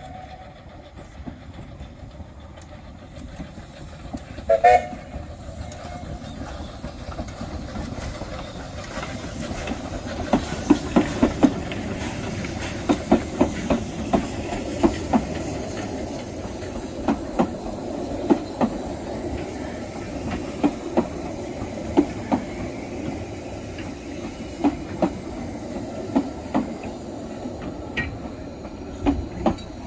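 Narrow-gauge steam train passing over a level crossing. A short whistle toot sounds about five seconds in. Then a rumble builds, with the wheels clicking sharply over the rail joints as the coaches roll by.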